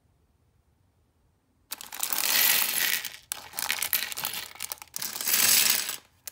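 Plastic LEGO pieces from the 40460 Roses set poured out of a clear plastic bag onto a LEGO baseplate. After nearly two seconds of quiet they clatter loudly in three spells lasting about four seconds, then one brief rattle at the very end.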